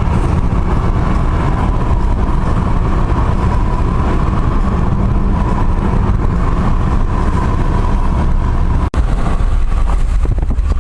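A car driving: steady engine and road noise, with a brief break about nine seconds in.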